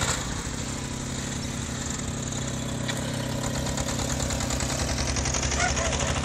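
Engine of a small garden tractor, fitted with a front snow blade, running steadily while it pushes snow.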